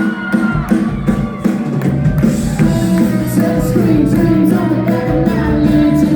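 Live band playing a song: drum hits on a steady beat under sustained guitar and other pitched instruments.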